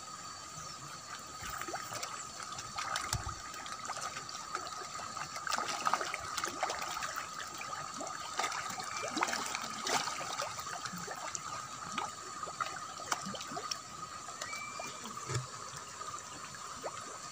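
Common carp and Nile tilapia feeding at the pond surface on floating feed: many small irregular splashes and sucking pops from the crowding fish, over a steady high drone.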